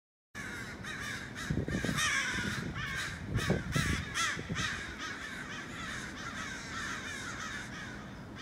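Many crows cawing over one another in rapid, overlapping calls, cutting in abruptly and busiest in the first half: the adult crows scolding a man holding their fledgling. A few low thumps sound underneath.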